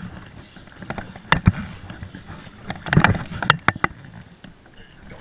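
Kayak ramping over an old beaver dam: the hull knocks and bumps on the dam, and the paddle clunks, giving a string of irregular knocks and thumps with the heaviest cluster about three seconds in.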